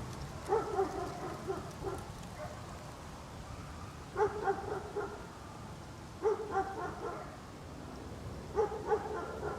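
A dog barking in four bouts of several quick barks each, roughly two seconds apart, over a steady low rumble of outdoor background ambience.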